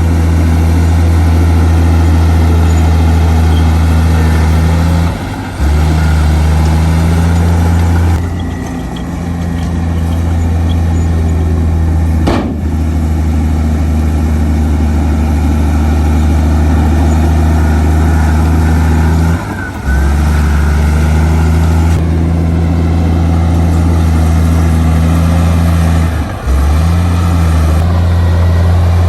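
Heavy diesel engine of earthmoving machinery running steadily with a deep, even drone, broken briefly a few times.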